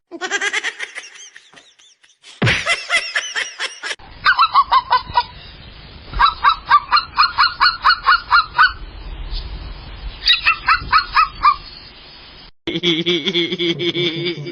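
An animal calling in quick runs of short, evenly repeated calls, about five a second, in three runs separated by short pauses, within a string of short clips cut together.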